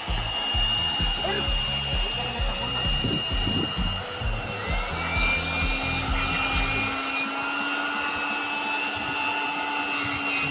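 Electric air pump running steadily with a constant whine, inflating an inflatable rescue boat, with irregular low thuds over the first two-thirds as the boat is handled.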